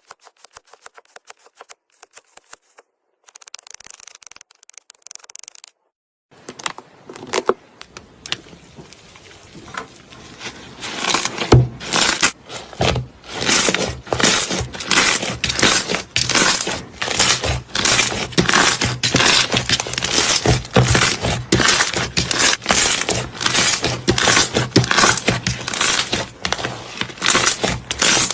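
Kinetic sand being squished and pressed: faint fine crackling at first, then from about a quarter of the way in a dense run of gritty crunches, roughly two a second, over a steady low hum.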